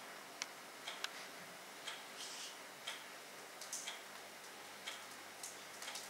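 A clock ticking about once a second, with a few lighter irregular clicks and a short soft rustle in between.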